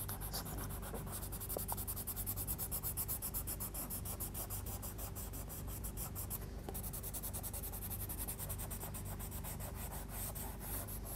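Derwent Blender pencil, a colourless wax pencil, rubbing over layered coloured-pencil marks on paper in rapid back-and-forth strokes, blending the colours together.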